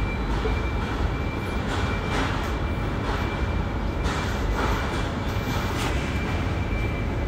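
Steady mechanical hum and hiss with a thin, steady high-pitched whine that stops near the end.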